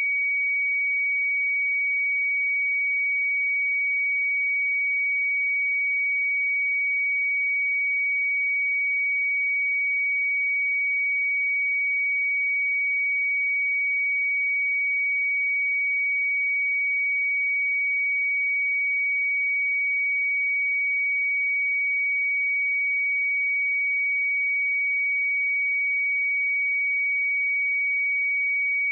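A pure 2258 Hz sine-wave test tone, held at one steady pitch and level.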